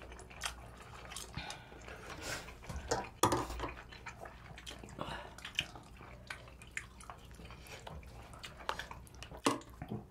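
Utensils clinking at the table: a metal ladle scooping and knocking in a pot of broth, with scattered sharp clicks of spoons and chopsticks. The loudest click comes a little over three seconds in.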